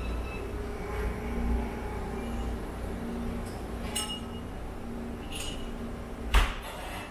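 Indoor room ambience: a steady low rumble with a faint hum, broken by a light click about four seconds in and one sharp knock near the end.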